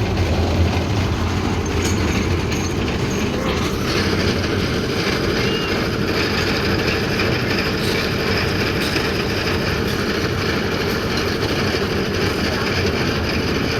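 Concrete mixer machine running steadily at a slab pour, its engine and turning drum giving a continuous, unchanging mechanical noise.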